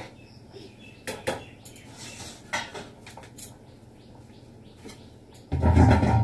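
Metal pots, pans and utensils clinking and knocking a few times at the stove, then a loud, muffled rustling close to the microphone near the end.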